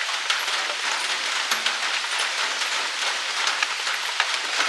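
Steady rain falling on a pond, with many separate drop hits over a constant hiss.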